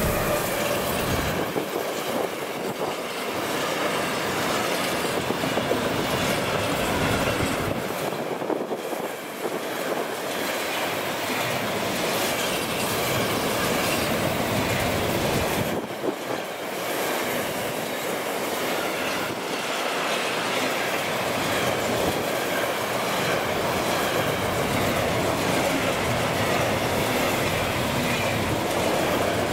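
Heavy freight train passing close by: electric locomotives, then a long run of intermodal pocket wagons carrying semi-trailers, with a steady noise of wheels rolling on rail.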